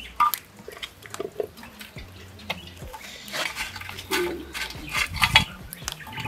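Irregular clicks and knocks as tomatoes and peppers are set on the charcoal in a metal coal pot and a stick pokes at the coals, with a louder cluster of knocks about five seconds in.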